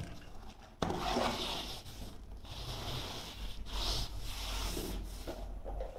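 Hands rubbing and pressing foam carpet underlay down along the skirting: a run of rustling rubs that starts suddenly about a second in.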